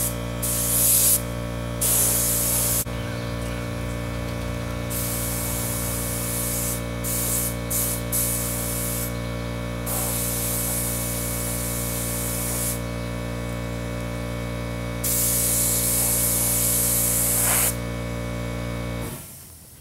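Napa detail air spray gun spraying paint, hissing in bursts of one to a few seconds as the trigger is pulled and let go. A steady low mechanical hum runs underneath.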